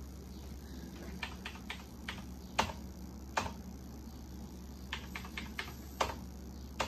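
Computer keyboard keystrokes as a login password is typed: separate key clicks in short runs with pauses between them, a few presses louder than the rest.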